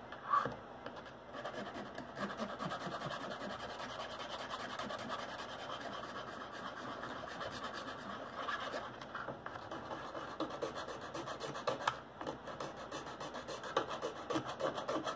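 A small hand file scraping along the cut edge of a piece of thin oyster-tin metal in quick, light strokes, filing the edge flat.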